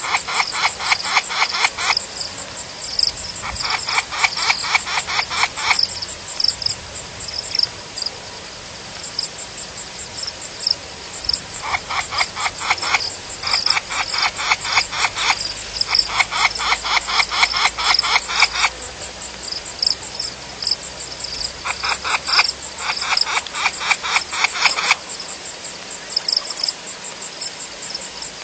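A chorus of frogs calling at a waterhole: bouts of rapid clicking pulses lasting one to two seconds, repeated again and again, over a steady high-pitched pulsing trill.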